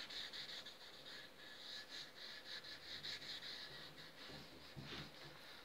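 A gloved hand rubbing stain into a wooden bass guitar body with a pad: quick back-and-forth wiping strokes, about four a second, that stop about four seconds in.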